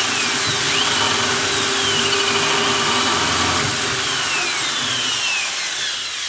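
Electric drill boring a 2.2 mm hole into a hardened steel hand tool, a steady whine with the bit grinding through the metal; the drilling stops near the end.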